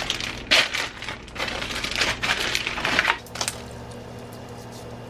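Crackling, crinkling handling noises from sandwich ingredients and their wrapping, in irregular bursts that stop about three seconds in, leaving a steady low hum.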